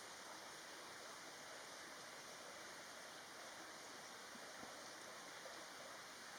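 Near silence: a faint, steady hiss with no bird calls.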